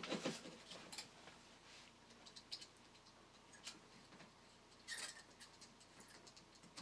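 Quiet, scattered small clicks and ticks from handling small electronic parts and a plastic 3D-printed part during soldering work, with a short cluster of clicks about five seconds in.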